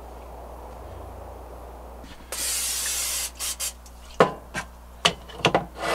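Aerosol cooking-oil spray hissing into a frying pan: one long spray of about a second, then a few short puffs. Several sharp knocks follow as the can and other things are set down on the counter.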